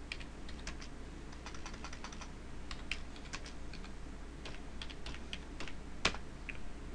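Typing on a computer keyboard: quick, irregular key clicks, with one louder keystroke about six seconds in.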